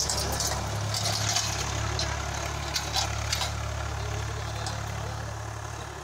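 Swaraj 855 tractor's diesel engine running steadily as it pulls a disc harrow, fading slowly as the tractor moves away. A few light clicks in the first half.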